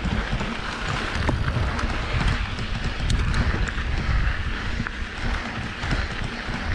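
Mountain bike riding a dry dirt singletrack: wind buffeting the microphone as a steady low rumble, tyres crunching over dirt and gravel, and scattered clicks and rattles from the bike over bumps.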